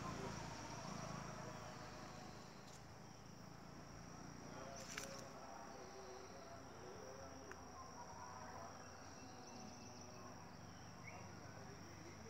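An insect's faint, steady high-pitched trill, held on one note throughout, with a single brief click about five seconds in.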